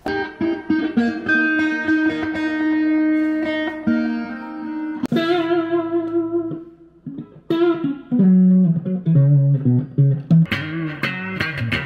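Telecaster-style electric guitar played through an amp: a chord rings out for the first few seconds, a new chord is struck about five seconds in, then a phrase of low single notes is picked.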